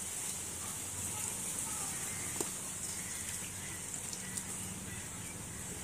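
Water splashing and dripping as peeled ash gourd pieces are rinsed by hand in an aluminium bowl and lifted out, over a steady high hiss.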